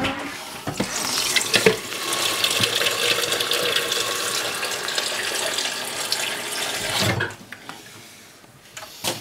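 Kitchen tap running into a blender jug held under it for a rinse, the water splashing in the jug and the stainless steel sink. The tap shuts off about seven seconds in.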